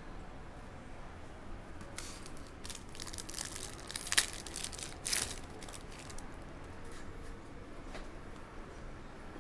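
Plastic wrapping on packaged trading cards being torn open and crinkled, in scattered crackly bursts with one sharp snap about four seconds in.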